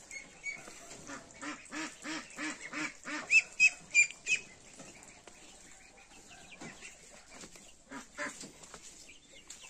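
Domestic ducks quacking in a run of short calls, about two a second, with four loud high-pitched peeps from young birds a little after three seconds in; fainter calls follow.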